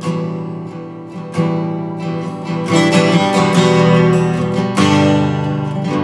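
Acoustic guitar strummed in an instrumental break, chords ringing with repeated strokes and building louder over the first few seconds.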